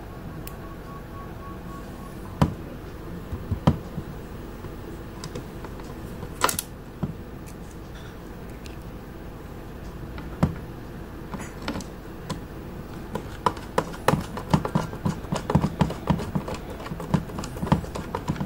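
Small plastic clicks and knocks from a radio-control transmitter's hard plastic housing being handled and worked on with a precision screwdriver. There are a few separate knocks at first, then a quick run of small clicks over the last five seconds.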